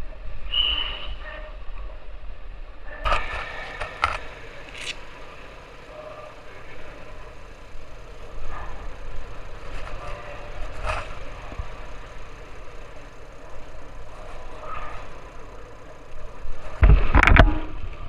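Motorcycle riding in slow traffic: a steady low engine and road rumble with scattered knocks and rattles, a short high beep less than a second in, and a loud burst of clatter near the end.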